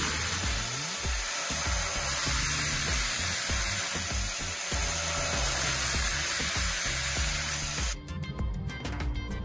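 Steel knife blade grinding against the spinning abrasive disc of an angle grinder, a steady grinding noise. It stops suddenly about eight seconds in, and background music follows.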